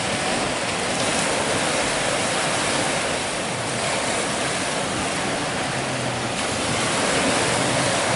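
Ocean surf breaking and rushing ashore, a steady wash of noise that grows a little louder near the end.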